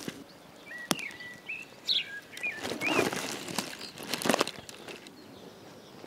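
Small birds chirping, a few short whistled notes in the first half, over a few crunching footsteps on the dry lichen-and-needle forest floor; a sharp click about a second in.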